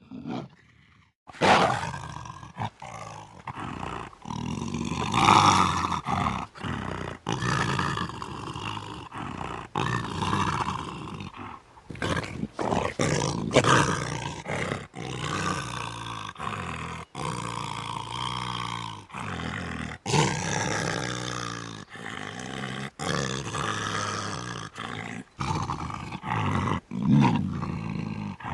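Animated-film street dogs growling, snarling and roaring fiercely. Many short clips are spliced one after another with abrupt cuts between them.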